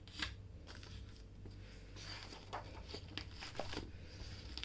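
Printed paper sheets of a coloring book being handled and turned, soft rustling with a few light taps and clicks.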